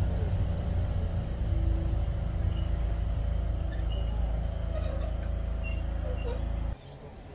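Blackpool heritage double-decker tram running along, heard from aboard: a heavy low rumble of wind buffeting the smartphone microphone over a steady running hum. The wind rumble drops out suddenly near the end.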